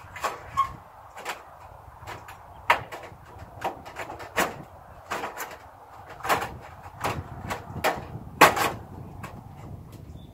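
A piece of sheet-metal siding knocking and rattling against the barn wall as it is worked into place by hand. The knocks come as a dozen or so irregular sharp strikes, the loudest a little past the middle.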